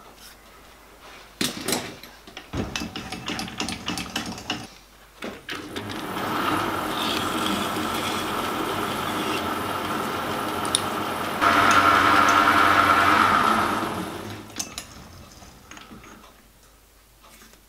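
Metal lathe with a short copper tube spinning in its chuck and a hand-held tool set against the tube's end. First a few clicks and knocks as the work is handled, then the lathe runs with a steady whine that grows louder for a few seconds. The lathe then winds down and stops.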